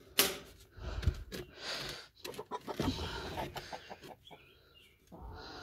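Domestic chickens clucking, mixed with a few sharp knocks and rattles from handling.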